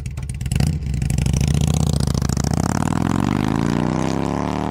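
Motorcycle engine running with a rapid pulsing beat, its pitch climbing steadily through the second half as the engine speeds up.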